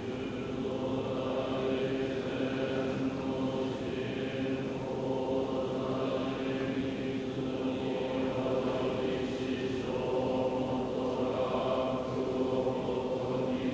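Soto Zen monks chanting a sutra together in unison, many voices holding a steady monotone.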